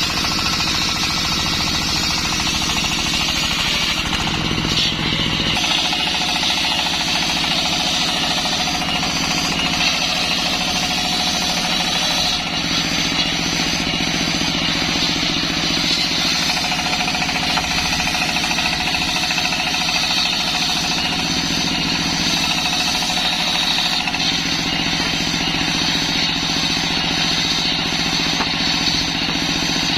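Circular saw machine running steadily: a continuous mechanical drone with a high whine on top. The low part of the drone shifts slightly about five and a half seconds in.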